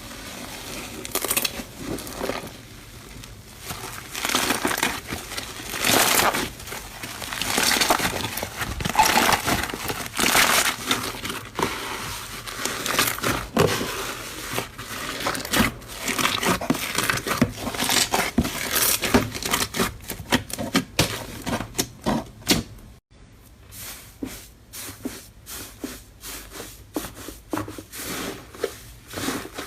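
Slime being squeezed and pressed by hand, making irregular crackling and popping sounds. The pops come closer together and sharper in the last third, after a brief break.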